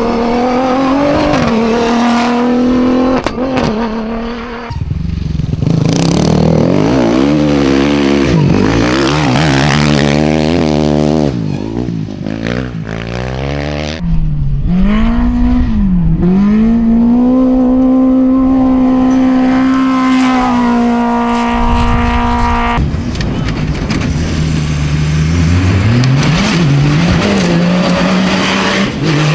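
Cross-country rally cars driven hard on dirt tracks, one after another. Their engines rev high and drop back at each gear change, with a long stretch held at steady high revs in the middle.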